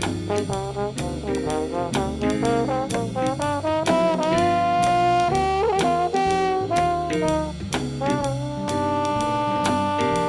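Brass-band jazz: trombone, trumpets and saxophone playing over a steady drum beat and bass line.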